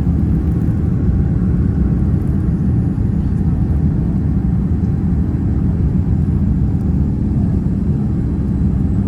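Steady low rumble of engine and airflow noise inside the cabin of a Boeing 787-10 shortly after takeoff.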